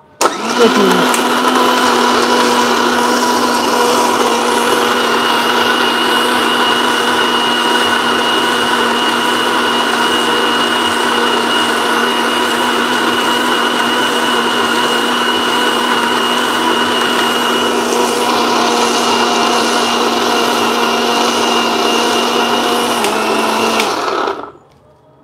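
Electric mixer grinder grinding a thick oat, date, banana and cocoa batter: a second grind to smooth out a still-grainy texture. It starts up with a quick rise in pitch, runs with a steady whine, then cuts off near the end.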